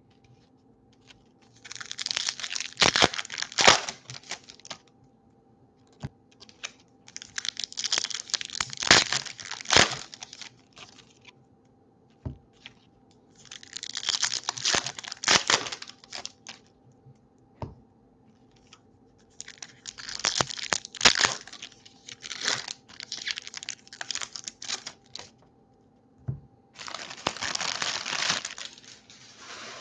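Foil trading card pack wrappers being torn open and crinkled by hand, in five bursts a few seconds apart.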